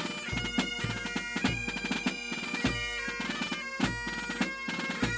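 Bagpipes playing a tune over a steady drone, with a bass drum struck five times at a steady marching beat, about one stroke every second and a bit.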